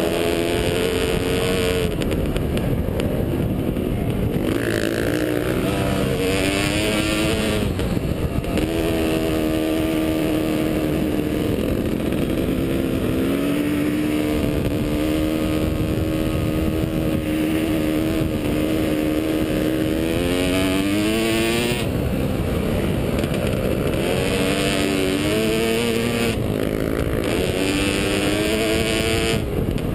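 Kawasaki KX500's two-stroke single-cylinder engine running hard under load. Its pitch climbs and falls as the throttle is worked and gears change, with several short drops when the throttle is rolled off.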